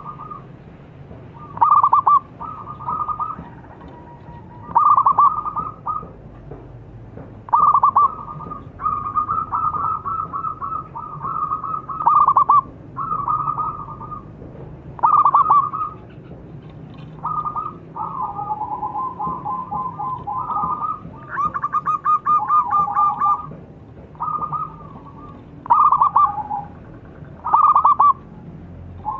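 Zebra dove (perkutut) singing: short rolling, trilled cooing phrases about every two seconds, with longer runs of rapid trilled notes in the middle.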